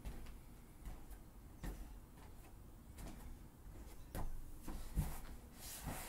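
Irregular soft thumps and scuffs of sneakers stepping on a foam gym mat, then a person sitting down onto the mat near the end, with a brief rustle as he gets down.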